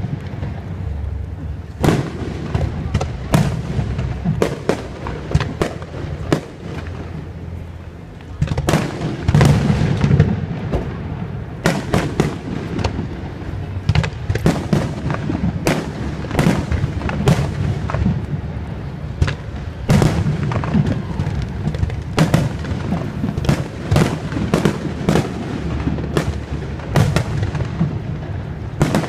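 Aerial fireworks display: a continuous run of sharp bangs, about one or two a second, with low rumbling between the bursts. A loud cluster of bursts comes about nine seconds in.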